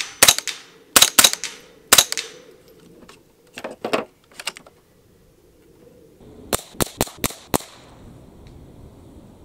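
Moderated CZ Scorpion EVO 3 S1 semi-automatic .22 LR carbine firing: four shots in the first two seconds, a few quieter reports around four seconds, then a rapid string of five shots about four a second near seven seconds.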